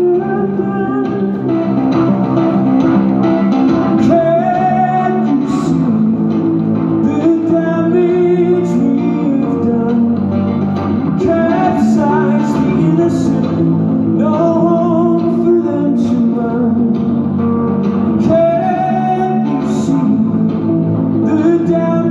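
A man singing live in phrases while accompanying himself on an archtop hollow-body electric guitar.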